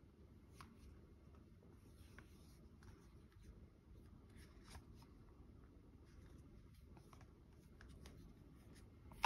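Near silence: faint rubbing and light ticks of fingers handling an Apple silicone MagSafe iPhone case, over low room hum, with a sharper click at the very end.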